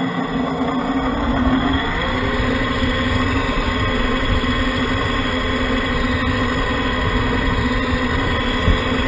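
Radio-controlled Freightliner tractor-trailer driving with a steady engine drone over a low rumble. The pitch rises about two seconds in and then holds as the truck gets under way.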